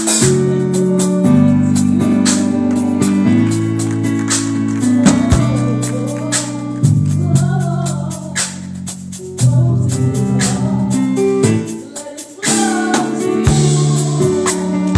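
Live gospel music: an electronic keyboard playing sustained, changing chords, with a choir singing and sharp percussion strokes. The music drops away briefly about three-quarters of the way through.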